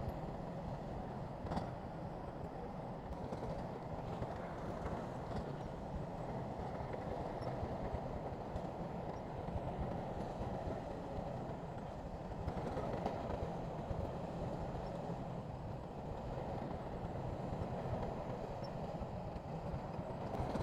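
Crawler bulldozer's diesel engine running steadily under work, with an occasional metallic knock.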